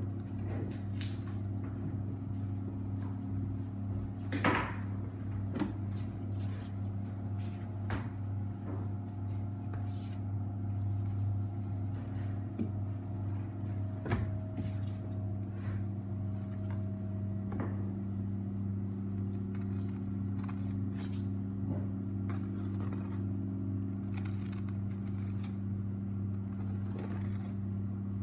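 Steady machine hum with a low drone, and scattered small knocks and scrapes of a boning knife and reindeer ribs on a plastic cutting board, the loudest knock about four seconds in.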